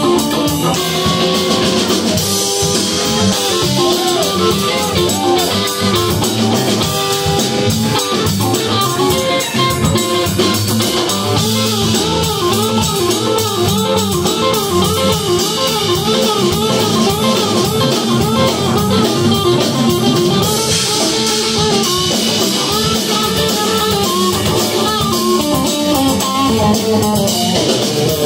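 Live blues-rock trio playing an instrumental passage: electric guitar lead with repeated bent notes over bass guitar and a Gretsch drum kit, no vocals.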